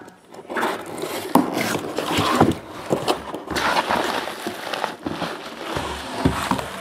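Cardboard box and bubble-wrap packing being handled and unpacked: irregular rustling and crinkling, with several sharp knocks of cardboard.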